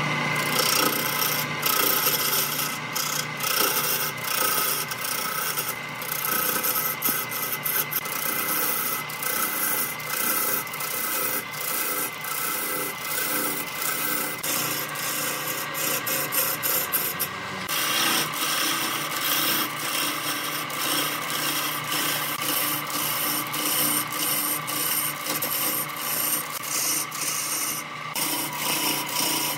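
Wood lathe, driven by an electric motor, spinning a large log blank while a hand-held chisel cuts into it: a steady scraping and rasping of the tool on the wood over the motor's hum, with shavings flying. The cutting noise gets fuller and brighter about two-thirds of the way through.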